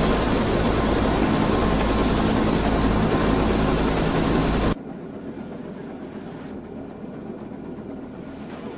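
Helicopter in flight, a loud steady rotor and engine noise that drops suddenly about five seconds in to a quieter, muffled drone as heard inside the cabin.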